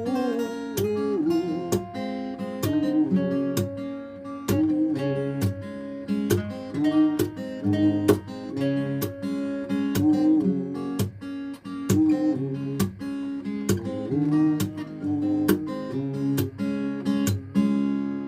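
Acoustic guitar strumming chords in a steady rhythm, with a melody line over them, in the closing instrumental part of a song.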